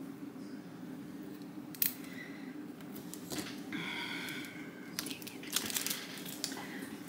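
Light crinkling and small clicks of a plastic UV DTF decal sheet and acrylic keychain blank being handled and peeled by hand, with a brief squeak near the middle, over a faint steady hum.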